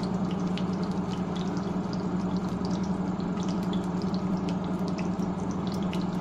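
Cumin seeds sizzling in hot oil in a frying pan, with many small scattered pops and crackles over a steady low hum.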